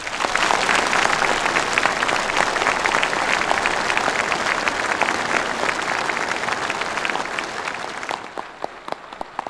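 Applause from a very large massed crowd of soldiers and officers, dense and sustained, thinning out to a few scattered claps near the end.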